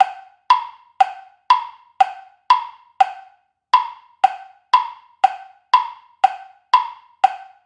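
Ticking-clock countdown sound effect: short woody ticks, about two a second, timing the answer to a quiz question.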